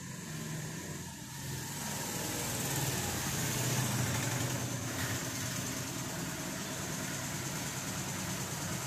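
A steady engine or motor running, growing louder over the first two seconds and then holding at a low hum with a hiss above it.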